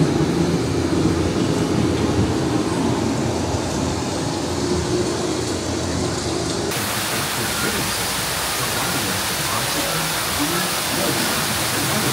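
A low steady rumble of a ride boat moving through its dark ride, then, after an abrupt change about seven seconds in, a steady hiss of rain sound effects from the ride's storm scene.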